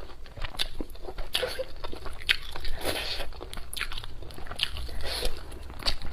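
A person eating braised crucian carp close to the microphone: chewing and biting, with irregular short clicks a few times a second.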